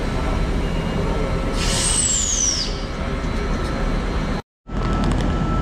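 Steady low rumble of trains standing at a station platform. About two seconds in, a loud hiss of air with a whistle falling in pitch lasts about a second, typical of a train's air brakes releasing. The sound cuts out for a moment near the end.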